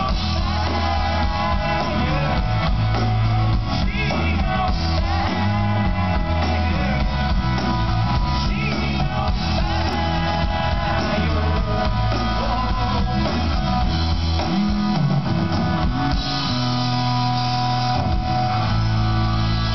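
A rock band playing live, with the guitar to the fore over a steady bass.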